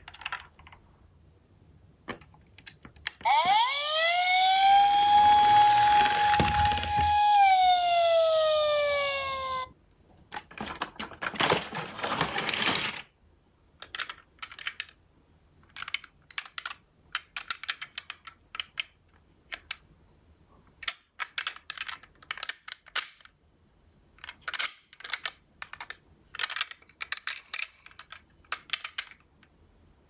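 A toy emergency vehicle's siren sounds one wail a few seconds in: it rises, holds steady for a few seconds, then falls away. A short rush of noise follows. The rest is many light clicks and rattles of die-cast toy cars being handled against each other in a cardboard box.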